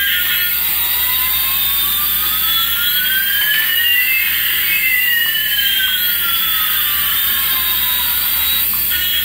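Synthesized sweep effect laid over the soundtrack: a steady whooshing hiss with two tones slowly gliding in opposite directions, one rising and one falling, crossing about halfway through.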